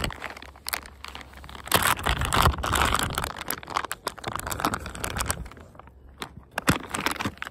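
Clear plastic soft-bait bag crinkling as it is handled right at the microphone while a soft-plastic lure is pulled out of it: uneven crackling and clicking, loudest about two to three seconds in, with a short lull near six seconds and a sharp click just after.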